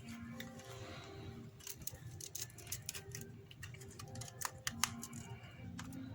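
Irregular light clicks and scrapes of an opening tool prying around the edge of a smashed iPhone X screen, lifting the display from the phone's frame.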